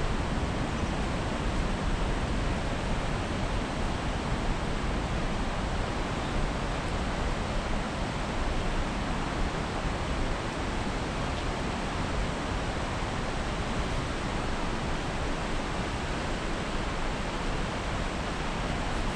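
Steady, even rushing of fast-flowing creek water.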